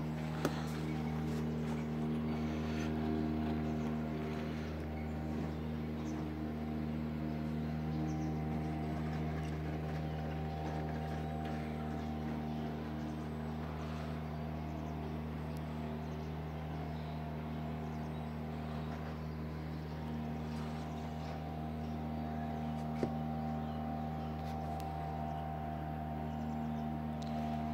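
A steady, unchanging low machine hum made of several held tones, with a sharp click shortly after the start and another late on.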